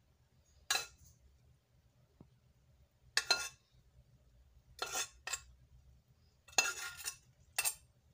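Metal spoon clinking and scraping against a glass baking dish and a saucepan rim while spooning syrup over a cake: about six short, irregularly spaced clinks.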